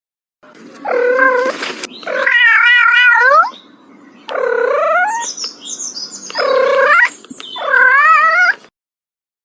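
A cat meowing in five drawn-out calls, about a second or more each, two of them with a wavering pitch.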